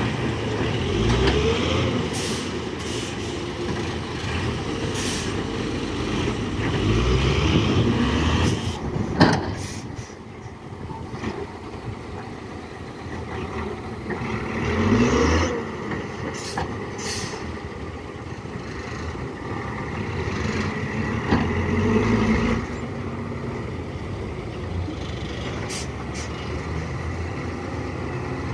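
Diesel dump truck engine running and revving up several times while its tipper bed is raised to dump a load of soil. There is a sharp burst about nine seconds in.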